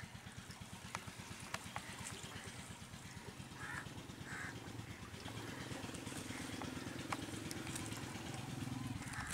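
25 hp Peter diesel engine running steadily with a fast, even beat while driving a belt-driven centrifugal irrigation pump. The running grows somewhat louder about halfway through. A few crow caws sound over it.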